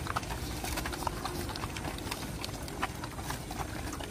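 A pack of dogs and puppies eating fast from plates and bowls: many quick, irregular smacks and clicks of chewing and lapping.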